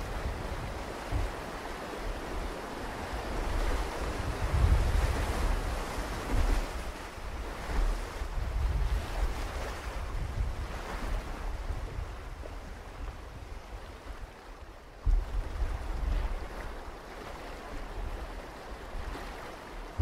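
Rushing river rapids around an inflatable boat: a dense, steady roar of fast whitewater, with irregular low gusts of wind buffeting the microphone and a sudden louder jolt about three quarters of the way through.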